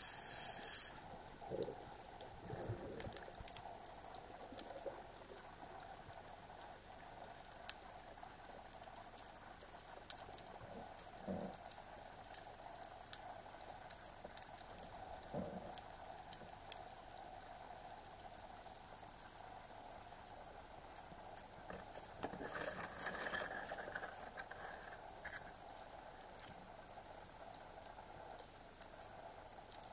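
Underwater ambience through a camera housing: a faint steady hiss full of fine crackling clicks, with a few soft knocks early and near the middle. A louder rustling swell comes about two-thirds of the way in.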